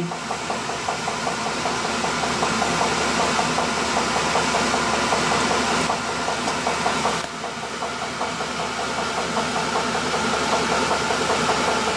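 Colchester metal lathe running under power during a screw-cutting pass on a small steel part: a steady mechanical whir from the motor and geared headstock as the threading tool cuts. The level eases slightly about seven seconds in.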